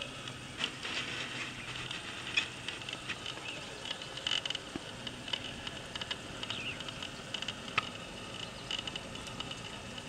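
Footsteps scuffing and crunching on dry, crumbly soil and loose grit as a person climbs down a steep eroded slope, in scattered light crunches. A steady high chirping runs underneath.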